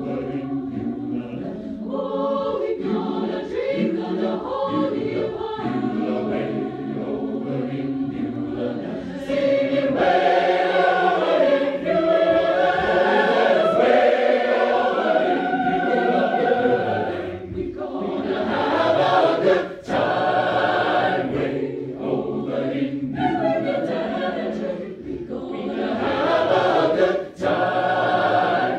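University choir singing, muffled by a phone recording from inside a pocket. The singing grows louder about a third of the way in, with two short breaks in the later part.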